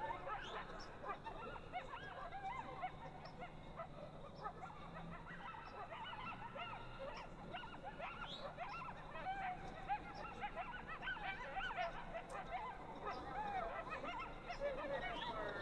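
A pack of coyotes yipping and howling together, many short calls rising and falling in pitch and overlapping throughout.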